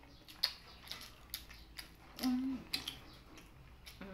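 Eating sounds at a table: a string of sharp little clicks and smacks as a person tastes food, with a short hummed "mm" about two seconds in.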